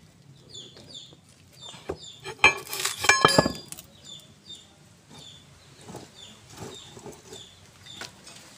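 Steel differential parts and tools clinking and ringing in a quick cluster about two and a half seconds in, with lighter knocks before and after, while the backlash between pinion and crown wheel is being set. A small bird chirps steadily in the background, about twice a second.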